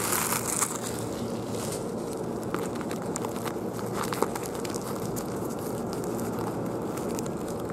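Plastic film of a convenience-store onigiri wrapper crinkling as it is pulled off, loudest in about the first second. Then a few soft scattered crackles over a steady background hiss.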